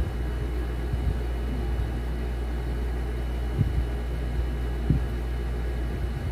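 Steady low rumbling hum of room noise, with a few soft knocks, the clearest about three and a half and five seconds in.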